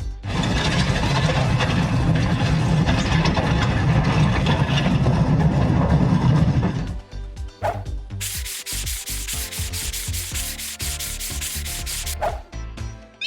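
Cartoon car-wash sound effects over soft background music: a steady rushing, scrubbing noise for about seven seconds, then a rapid run of even clicks, about five a second, for the last few seconds.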